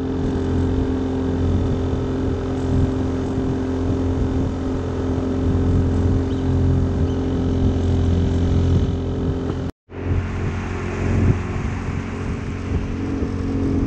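Small boat's outboard motor running steadily at cruising speed, with water rushing along the hull. The sound breaks off for an instant about ten seconds in, then carries on.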